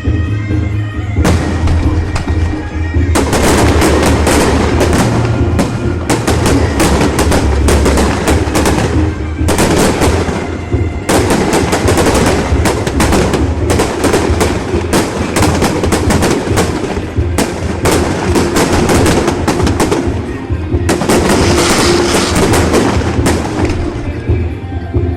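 Fireworks going off in a dense rapid barrage of bangs, many a second, thinning briefly near the end, with music playing underneath.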